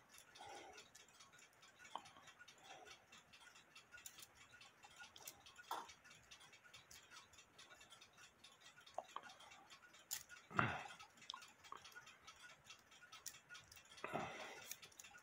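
Faint, irregular light clicks from an AMS cuckoo clock's brass movement being worked by hand during a function test of its striking, with a few short, louder rubbing sounds of fingers on the works.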